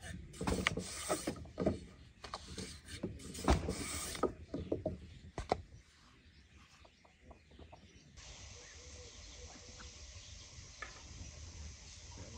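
A long thin wooden rolling pin rolling and knocking against a wooden board as lavash dough is rolled out thin, a run of sharp clicks and knocks. After a short lull, a steady hiss of background ambience takes over about two-thirds of the way in.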